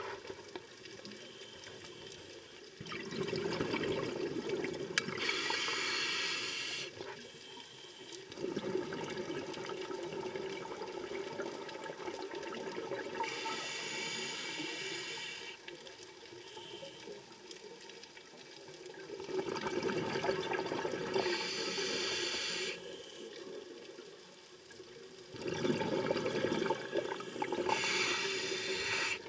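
A scuba diver breathing through a regulator underwater: a hiss on each inhale alternating with a rush of exhaled bubbles, about four breaths, one every seven or eight seconds.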